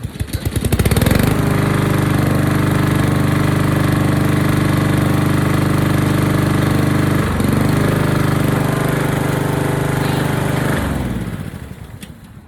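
Honda HR216 lawn mower's single-cylinder engine pull-started, catching within about a second and running steadily. About seven seconds in it falters briefly and recovers, and near the end it is shut off and winds down.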